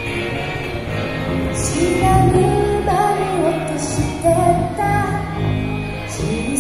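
Live band playing pop music, with a singer's voice coming in about two seconds in.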